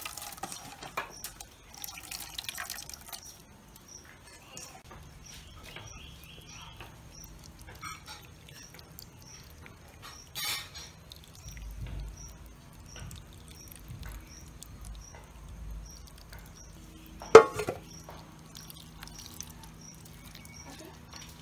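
Grated coconut squeezed by hand, coconut milk dripping and trickling into a bowl and then onto cut beans in a clay pot. A single sharp knock a few seconds before the end is the loudest sound.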